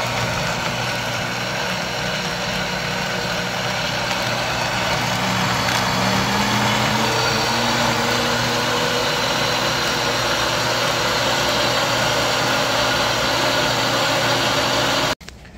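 Countertop blender running at high speed, puréeing boiled chiles, tomatoes and spices into a thick sauce. The motor whirs steadily, then switches off abruptly near the end.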